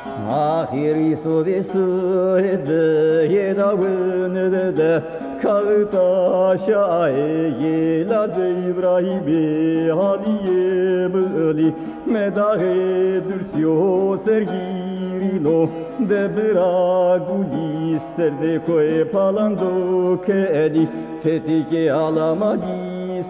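A Zaza folk song: a male voice singing a wavering, ornamented melody in Zazaki over steady instrumental accompaniment.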